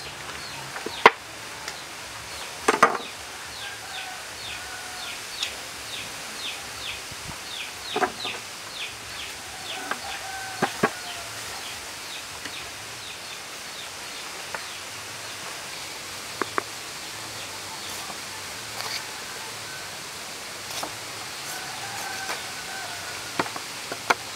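Knife strikes and chops on a wooden table as a plucked duck carcass is cut up: a handful of sharp knocks spaced irregularly, the loudest about a second in and just before the end. Birds call in the background, including a quick run of short high chirps for several seconds early on.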